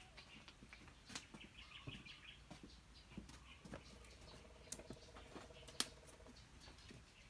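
Faint scattered clicks and taps, with faint bird chirps and a brief buzzing trill in the background.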